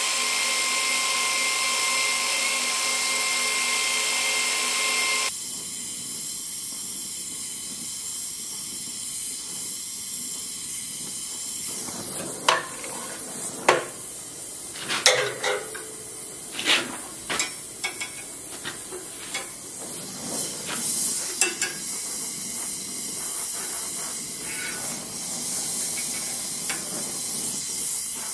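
A belt grinder runs with a steady whine while a small steel part is ground against the belt. About five seconds in it gives way to the steady hiss of an oxy-acetylene torch flame, with a run of sharp metal clinks and knocks in the middle as a steel rod is handled in a bench vise.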